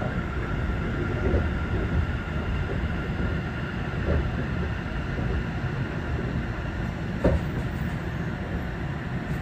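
Sendai Subway Tozai Line 2000-series linear-motor metro car heard from inside the cabin while running: a steady rumble of wheels and running gear with a faint high tone over it. A single short knock sounds about seven seconds in.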